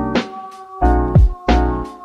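Background music: mellow keyboard chords over a steady beat with a deep kick drum.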